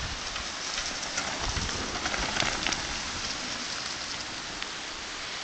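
Mountain bike passing close on a dirt forest trail: tyre noise and short rattling clicks, loudest about one to three seconds in, over a steady hiss.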